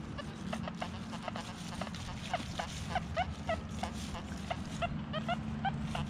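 XP Deus metal detector sounding short, wavering low target tones, two to four a second, as the coil is swept back and forth over a deep target that is hard to pinpoint and sounds like iron.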